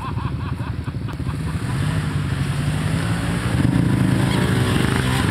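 Engine of a Yamaha Rhino side-by-side off-road vehicle running and getting steadily louder, with a slight rise in pitch after about three seconds.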